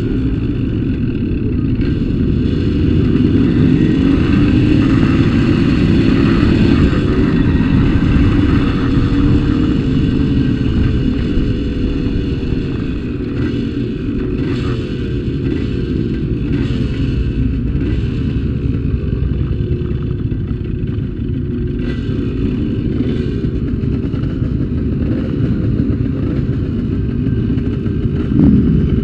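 Motorcycle engine running while riding, with heavy wind rumble on the arm-mounted camera's microphone. The engine note slides up and down with throttle and gear changes, and there is a brief louder burst near the end as the bikes bunch up.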